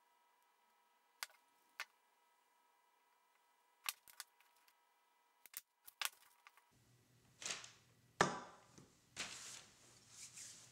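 Light, sharp clicks and knocks of wooden hand-plane parts and a glue brush being handled during a glue-up, over a faint steady whine. In the last few seconds come four short scraping, rubbing sounds as the glued body pieces are pressed and slid together, the second one the loudest.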